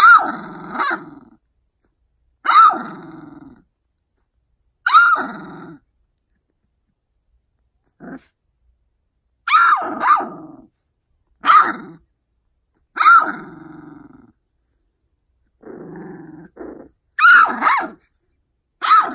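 Two-week-old labradoodle puppy barking in a string of about a dozen short, high, sharp-onset calls with growly tails, one to two seconds apart: a young puppy sounding mad.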